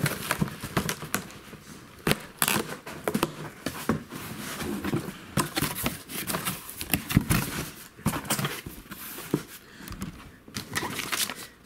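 A cardboard shipping box being opened by hand: the packing tape is ripped off and the flaps are pulled back. It makes a run of irregular crackling rips, scrapes and rustles.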